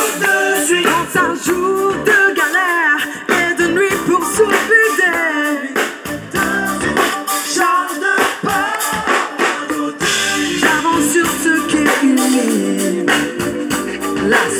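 Live rock band playing, with a woman singing lead over drum kit and electric bass. Her voice wavers and bends in pitch, and the drums strike in a steady beat.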